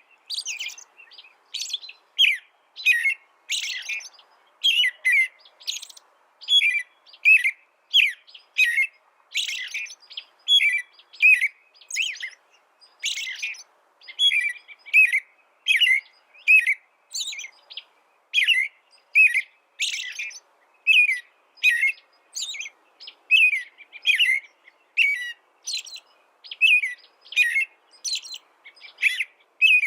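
Small songbird chirping over and over in short, high, quick notes, about two or three a second with brief gaps between them.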